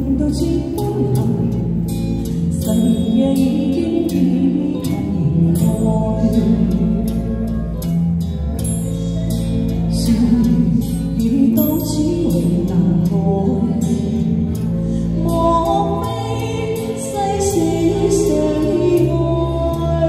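A woman singing a Chinese pop ballad into a handheld microphone over a backing track with a steady beat, amplified through a small street PA speaker.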